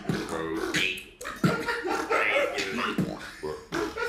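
Beatboxed mouth sounds imitating an animal: pitched vocal noises that slide up and down, broken by sharp clicks and pops, with a short break about a second in.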